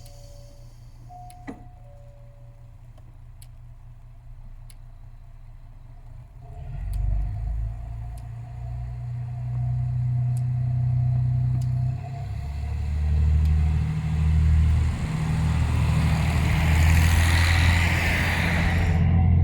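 JR Hokkaido KiHa 54 diesel railcar idling at the platform while a descending two-note chime sounds twice. About a third of the way in, its diesel engine throttles up and the railcar pulls away, the engine note stepping up in pitch and growing louder, with a hissing rush that builds near the end.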